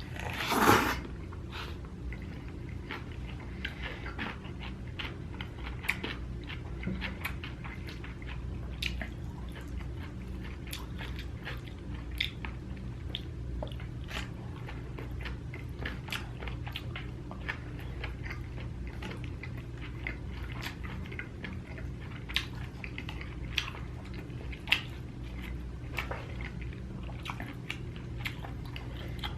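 Close-miked chewing and biting of food, with wet mouth clicks scattered throughout over a steady low hum. There is one brief, louder noisy burst just under a second in.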